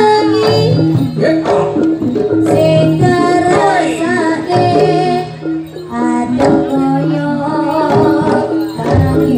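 Loud live Javanese jaranan accompaniment: melodic instruments play held notes over steady percussion, with a voice singing along at times.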